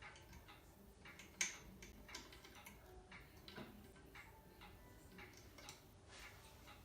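Faint, irregular clicks and taps of plastic LEGO pieces being handled, with one sharper click about one and a half seconds in.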